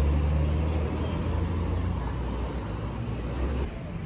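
Street traffic at an intersection, with a vehicle engine running close by as a steady low hum; it cuts off abruptly near the end, giving way to quieter street sound.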